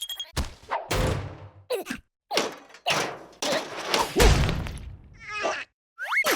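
Cartoon slapstick sound effects: a quick run of thuds and whacks about every half second, the heaviest thud about four seconds in, then a short warble and a rising squeak near the end.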